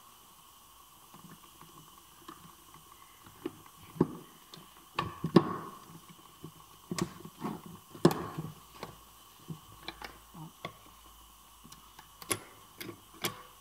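Irregular metallic clinks and knocks as the gear shafts and selector forks of a manual car gearbox are handled and shifted against the casing, the loudest knocks about five and eight seconds in.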